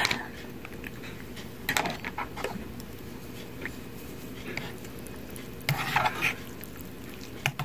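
A plastic spork stirring through a bowl of noodle soup, scraping and knocking against the bowl in short bursts, about two seconds in and again around six seconds in.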